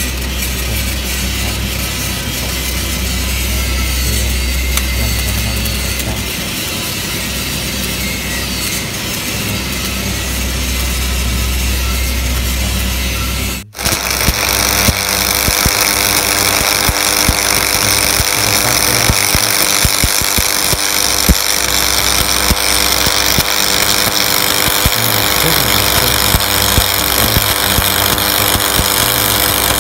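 A low hum with hiss, then, after a break about halfway through, a shielded metal arc (stick) welding arc crackling and sizzling steadily with sharp pops as the electrode burns along a steel corner joint.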